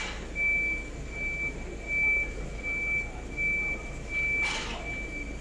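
Vehicle reversing alarm beeping: one high tone repeating evenly, about one and a half beeps a second, over street noise. A short hiss comes about four and a half seconds in.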